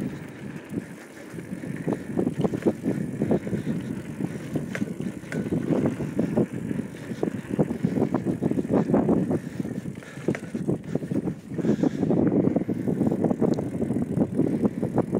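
Bicycle ridden over a rough dirt track: tyres on uneven ground and the frame rattling, a continuous clatter of small knocks and bumps.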